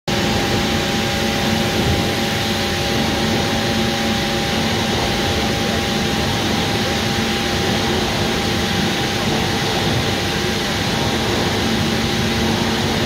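Steady, loud machinery noise of a pipe rolling mill line in operation, a continuous hum with several held tones.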